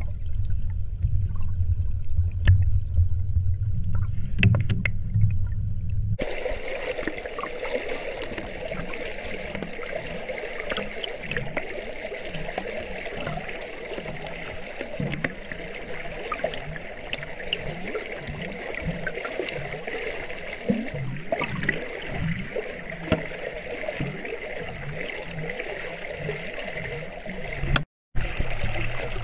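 Shallow stream water running and gurgling around a submerged camera. For the first six seconds or so it is a muffled low rumble, then it changes suddenly to a brighter, hissing flow with many small ticks and clicks. The sound cuts out for a moment near the end.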